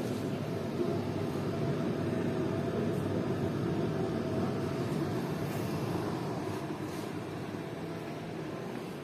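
Steady low rumbling background noise with a faint hum running through it.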